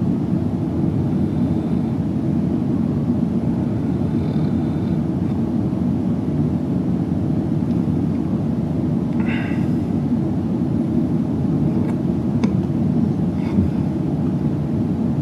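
A steady low rumble that holds at one level throughout, with a brief hiss-like sound about two-thirds of the way through and two faint clicks near the end.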